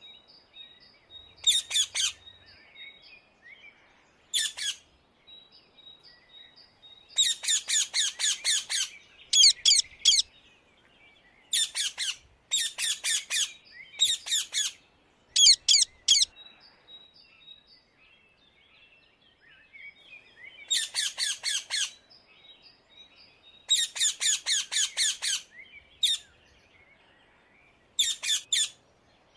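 Rose-ringed (Indian ringneck) parakeet calling in about a dozen loud bursts of rapidly repeated shrill notes, each burst lasting up to about two seconds, with faint short high chirps in the gaps.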